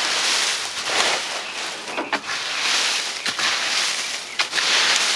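A long-handled fork raking and flinging bone-dry wood chips, leaves and old chicken bedding: a dry rustling scrape in repeated strokes about once a second, with a few sharp clicks as the tines knock on wood.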